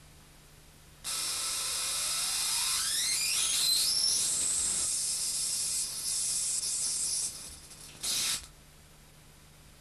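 High-voltage spark-gap discharge apparatus of a home-built microwave thruster switched on: a loud hiss with a whine rising steeply in pitch over about three seconds and then holding high, cut off about six seconds later. A second short burst of hiss comes near the end, as a spark glows on the foil-covered cylinder.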